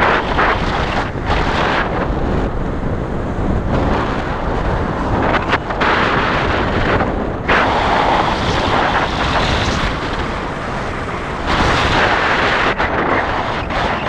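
Airflow buffeting a paraglider pilot's camera microphone in flight: a loud rumbling rush of wind that swells and eases in gusts, the strongest surges about halfway through and again near the end.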